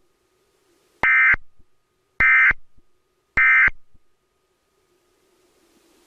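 Emergency Alert System end-of-message signal: three short bursts of SAME digital data tone about a second apart. They are the 'NNNN' code that closes an EAS Required Monthly Test relayed by a cable headend.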